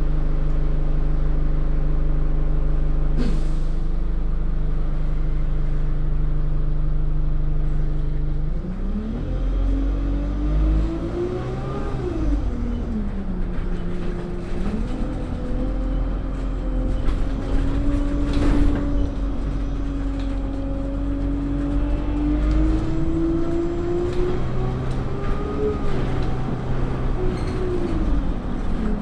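Bus engine heard from inside the bus: idling steadily, then about eight seconds in pulling away, its pitch rising, dropping at a gear change, then climbing slowly as the bus gathers speed, with another drop near the end.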